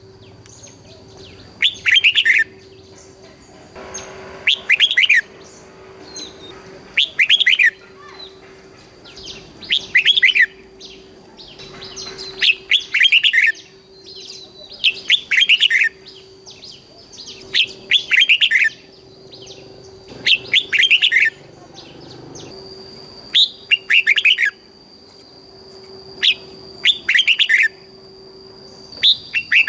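Red-whiskered bulbul singing, one short bright phrase about every two to two and a half seconds.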